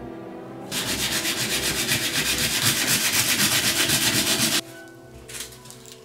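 Steel pocket-knife blade rubbed back and forth on sandpaper in quick, rasping strokes, about five a second, to sand and clean up the blade. It starts about a second in and cuts off suddenly after about four and a half seconds.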